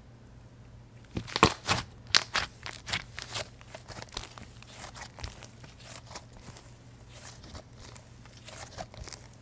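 Soft, fluffy white slime being squeezed and folded in the hands, giving irregular crackling pops. They start about a second in, are loudest in the first couple of seconds, then go on more softly.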